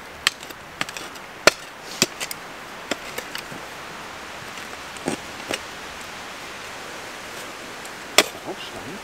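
A small shovel digging into stony soil: about ten irregular, sharp clinks and scrapes as the blade strikes stones buried in the ground. The loudest come about one and a half seconds in and near the end.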